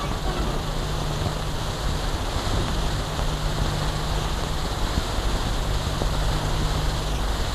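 Steady hiss and low rumble with a faint low hum that comes and goes: the background noise of an old film soundtrack, with no music or speech.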